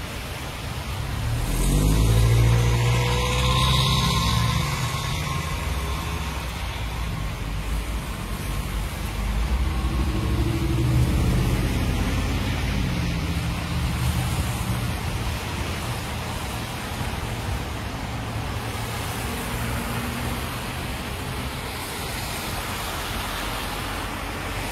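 Cars driving past on a wet, flooded road: engine noise over a steady hiss of tyres and water. It is loudest as a car goes by about two seconds in, with another pass around ten to twelve seconds.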